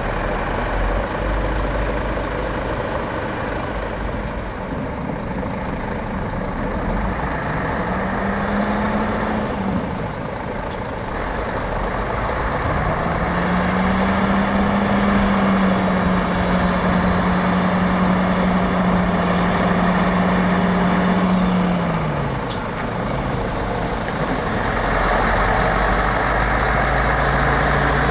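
Heavy diesel truck engines running. One engine's pitch rises and falls briefly about 8 seconds in. It rises again about 13 seconds in, holds steady for several seconds, then drops back off about 22 seconds in.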